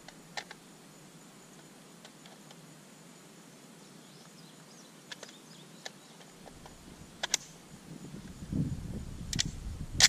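Scattered metallic clicks and clacks of an M14 rifle's action being handled. A sharper clack comes about seven seconds in and the loudest right at the end, that one with a brief metallic ring. Low handling noise builds over the last two seconds.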